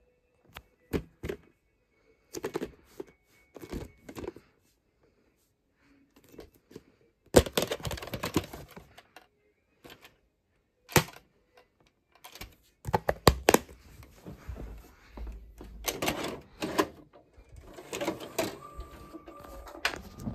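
Clicks, snaps and clatter of a plastic VHS clamshell case being opened and the cassette taken out and handled, in irregular bursts with short pauses. Near the end a steady high whine starts.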